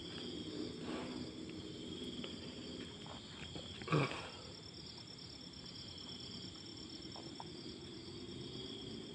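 Crickets chirring steadily at night, with one short louder rustle or knock about four seconds in.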